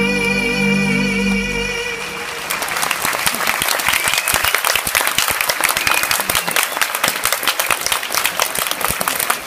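Stage music on a held, sustained chord ends about two seconds in, and a large audience breaks into applause that keeps going.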